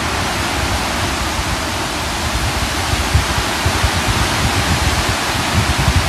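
Steady rushing wind noise, with irregular low rumbles from wind buffeting the microphone that come more often in the second half.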